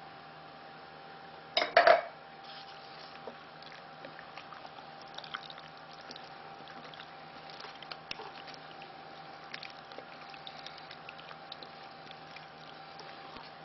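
Wooden spoon stirring thick mince and crushed-tomato sauce in a slow cooker's crock, with wet stirring sounds and many small scrapes and clicks against the pot. A loud double knock comes about two seconds in.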